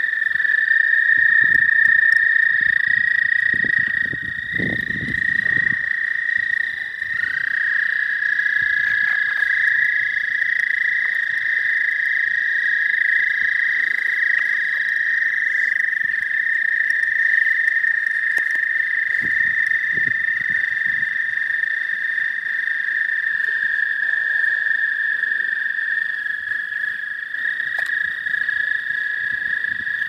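A chorus of toads trilling: several long, steady, high-pitched trills overlap, each held for several seconds, one starting as another stops.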